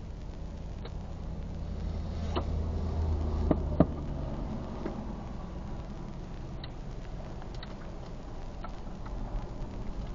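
Steady low road and engine rumble of a car driving at night, heard from inside the vehicle, with about eight scattered sharp ticks, the loudest a little under four seconds in.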